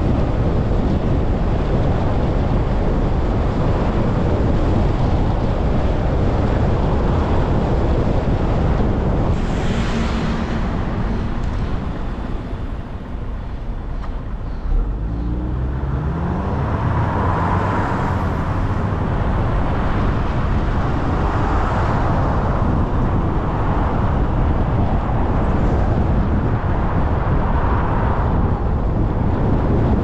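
Car driving on a wet road: steady tyre and wind noise. It eases off a little past ten seconds in, then the engine note rises as the car speeds up again.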